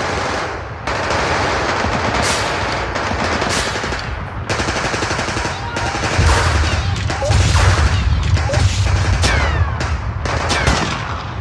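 Rapid gunfire in long, dense bursts, like automatic weapons, starting suddenly at full loudness, with a low rumble under it for several seconds past the middle.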